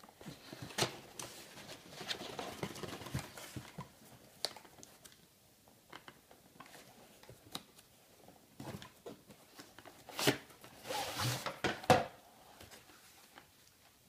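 Packaging being handled and opened around a die-cast scale model: plastic wrap rustling and crinkling, with scattered sharp clicks and knocks, and a louder burst of rustling a couple of seconds before the end.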